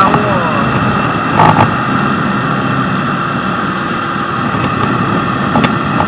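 Small Honda moped engine running at cruising speed under a steady rush of wind over the microphone, with a brief louder gust about a second and a half in.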